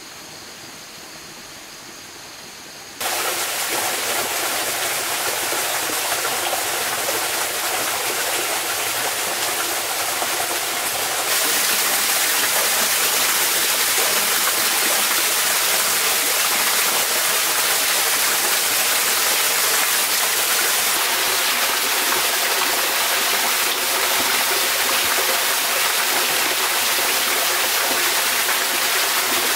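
Small waterfall splashing into a rock pool, a steady rushing of water that cuts in abruptly about three seconds in and grows louder at about eleven seconds. Before it, a quieter outdoor ambience with faint steady high tones.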